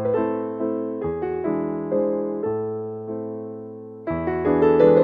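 Background music: a piano-style keyboard plays a gentle tune of struck chords and single notes. It fades a little about three seconds in, then comes back with a louder chord near the end.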